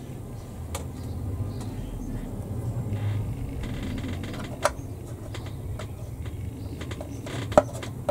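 A few light clicks and taps of a plastic model kit part being handled and pressed into place on the hull, the sharpest near the end, over a low steady hum.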